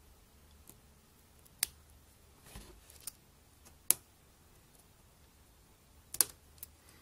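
Small sharp clicks and taps of a plastic pry tool and fingertips on the opened iPhone's internal parts while the camera connector is worked free: three clear clicks, the loudest about halfway through, with fainter ticks between.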